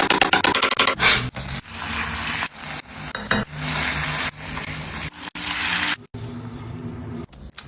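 Food-preparation sounds in short abrupt snippets: scraping and rubbing, with a quick run of taps about the first second.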